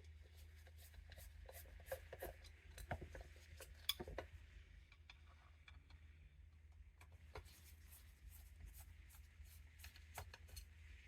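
Faint clicks, taps and light scraping of tools and small metal carburetor parts being handled while the float bowl is taken off, with a sharper click about four seconds in, over a steady low hum.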